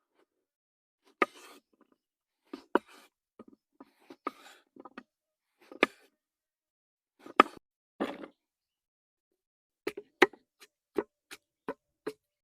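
A series of irregular sharp knocks and clicks, some trailing into short scrapes, with a quicker run of clicks in the last few seconds.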